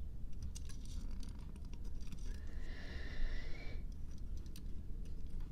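Light scattered clicking and scratching of a 1981 Bandai Pink Panther wind-up toy's clockwork motor as it walks, with a short rising tone a little past two seconds in.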